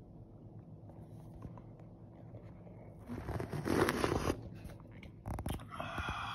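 A loud slurping sip of hot instant cappuccino from a glass mug, lasting about a second, about three seconds in. A couple of sharp clicks follow, then a short vocal sound near the end.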